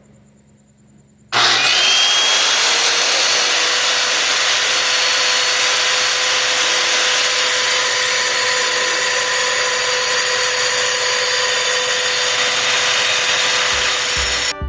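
Electric rock saw switched on about a second in, spinning up with a short rising whine and then running steadily with a loud hissing whine as it cuts agate, until it stops near the end.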